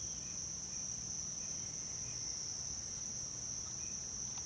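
Steady, high-pitched insect chorus, one unbroken drone.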